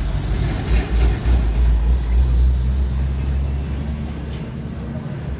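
Street traffic, with a motor vehicle's engine rumbling past close by. It is loudest from just under a second in to about three seconds, then fades into general traffic noise.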